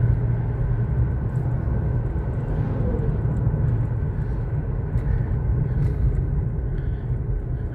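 Steady in-cabin road and engine noise of a 2013 Ford Police Interceptor sedan with its twin-turbo V6, cruising at an even speed: a low, constant rumble that neither rises nor falls.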